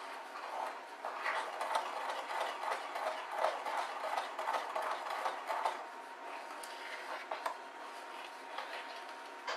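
Spoon stirring thick chocolate batter in a glass mixing bowl: irregular scraping and light clinks against the glass, busiest in the first half and easing off after about six seconds.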